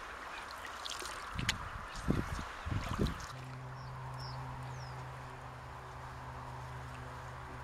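Open canoe being paddled on a still river: a few soft knocks and water swirls in the first three seconds. Then a steady low hum sets in and holds, with a couple of faint high chirps.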